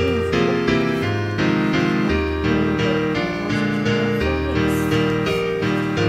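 Background piano music: an even run of notes, about two to four a second, over held bass notes.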